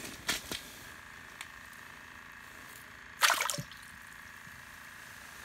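A small northern pike dropped back into a hole in the ice: one short splash about three seconds in, after a couple of faint handling clicks near the start.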